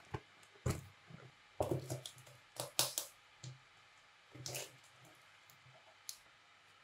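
Clear plastic wrap crinkling and a cardboard box being torn open by hand, in a string of short rustles and rips with quiet gaps between them; the loudest comes just under three seconds in.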